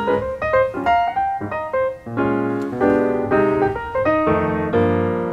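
Background piano music: single notes and chords at a moderate pace, with a brief break about two seconds in.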